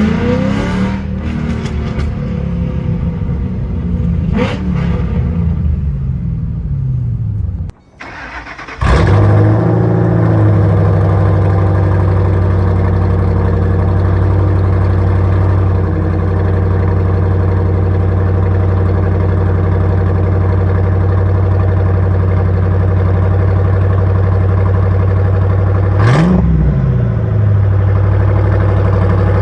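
Ford Mustang engine breathing through newly installed Kooks headers and exhaust. For the first several seconds it revs, its pitch rising and falling. After a brief break it settles into a steady, loud idle, with one quick rev blip near the end.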